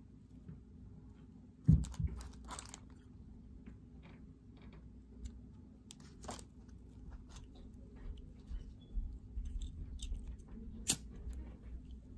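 Hands handling and pinching a satin ribbon, with scattered rustles and small clicks and a louder knock about two seconds in. Near the end, a sharp click as a lighter is sparked to burn the ribbon ends.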